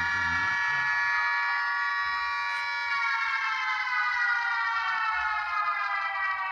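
Recorded WW2 air raid siren played back: a steady wail that begins to fall in pitch about three seconds in.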